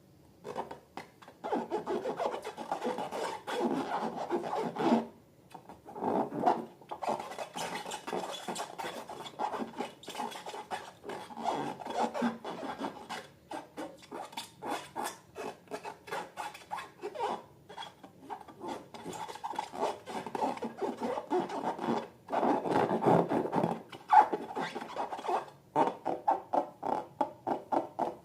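Close-up handling of slime and balloons: a dense run of rapid rubbing and crackling strokes in long stretches, broken by several short pauses.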